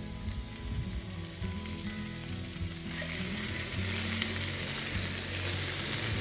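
Food frying in a hot pan, a steady sizzle that swells and grows louder about halfway through.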